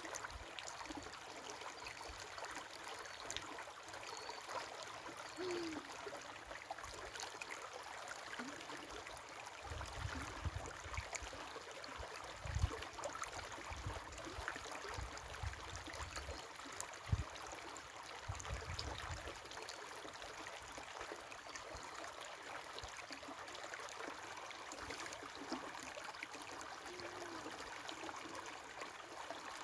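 A river flowing steadily, its water running and babbling, with a few low rumbles between about ten and nineteen seconds in.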